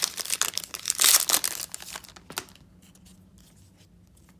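A foil trading-card pack wrapper being torn open and crinkled: a dense run of tearing and crackling, loudest just after a second in, which stops about two and a half seconds in.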